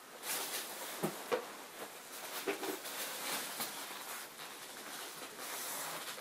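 Hands rummaging through a cardboard box of foam packing peanuts, making a steady rustle with scattered light clicks and knocks as toys are lifted out.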